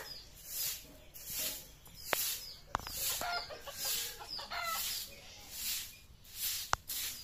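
Straw broom sweeping a concrete floor in regular swishing strokes, a little over one a second. Hens cluck now and then, and a few sharp clicks come in the middle and near the end.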